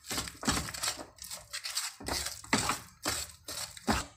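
Spatula stirring and scraping a thick mix of mawa and melted jaggery around a metal kadhai, in uneven scraping strokes two or three a second.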